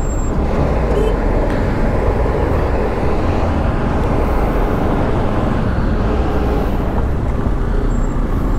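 A motorcycle ride in traffic: the engine runs under a steady rumble of road and wind noise, with other vehicles around.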